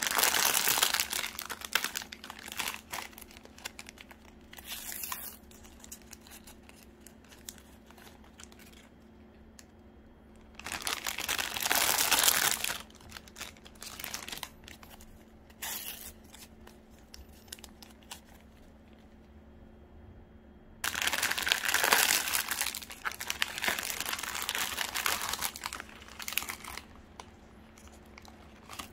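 Thin plastic bread wrappers being crinkled and torn open by hand, in three loud bursts: near the start, around the middle, and again for several seconds later on, with quieter rustling between them.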